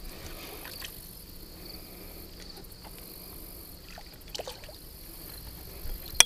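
Water lapping and splashing softly as a landed carp is lowered back into the lake, over a steady chirring of insects. A single sharp knock sounds near the end.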